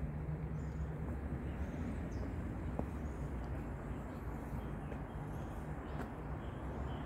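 Steady low mechanical hum, with a couple of faint clicks.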